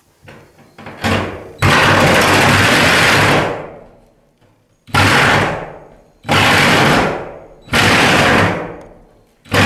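Cordless reciprocating saw with a metal-cutting blade cutting through a ridged metal roof panel, run in five short bursts that each start abruptly and die away over about a second.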